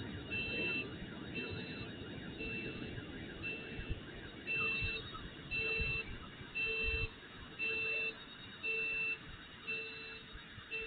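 Car alarm beeping at an even pace, about one beep a second, over a low background rumble.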